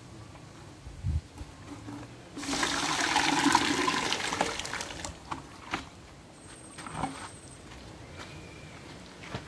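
Water poured out of one plastic bucket into another, a rushing splash that starts about two and a half seconds in and lasts about two and a half seconds. A dull knock comes about a second in.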